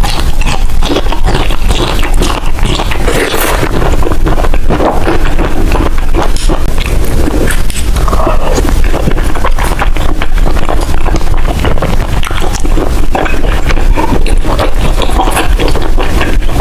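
Close-miked chewing and wet mouth sounds of someone eating oden, loud and continuous with many irregular smacks and clicks.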